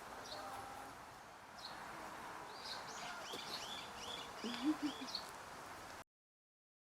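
Birds chirping in a quick series of short, high notes from about two and a half seconds in, with a lower short call near five seconds. The sound cuts off abruptly about six seconds in.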